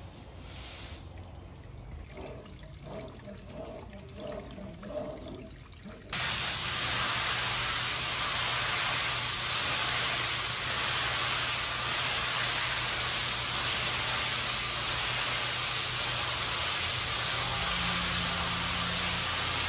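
High-pressure water spray from a pressure-washer wand hissing steadily onto a wet area rug, starting abruptly about six seconds in. Before that there is only a low hum and faint handling noises.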